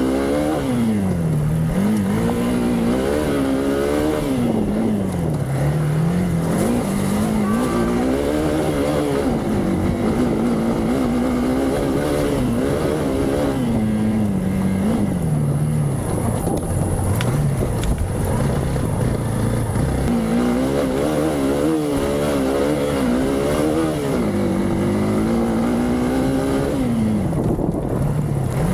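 Hero Xpulse 200's single-cylinder four-stroke engine under hard off-road riding, revving up and dropping back every few seconds as the throttle is worked and shifted, the note wavering over rough ground.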